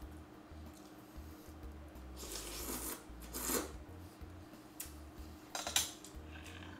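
Close-miked mukbang eating sounds: a spoon scraping and clinking against a plate about two to three seconds in, then a cluster of wet chewing and lip-smacking clicks near the end, the loudest of them. A faint steady hum runs underneath.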